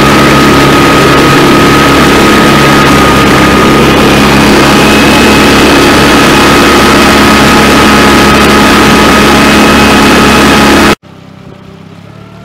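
Suzuki 15 hp four-stroke outboard motor running steadily at speed, very loud close to the motor with water spray and rushing wake. About eleven seconds in the sound drops suddenly to a much quieter, more distant run of the same engine.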